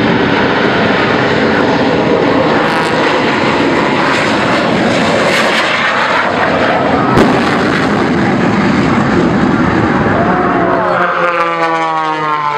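The Shockwave jet truck's three afterburning Westinghouse J34 turbojets running at full power: a loud, steady jet roar with a sharp bang about seven seconds in. Near the end an aerobatic plane's engine passes, its pitch falling.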